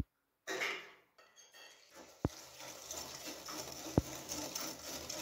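Wire balloon whisk beating an egg into a butter, oil and sugar mixture in a glass mixing bowl. About two seconds in, a steady swishing starts, with an occasional sharp clink of the wires against the glass.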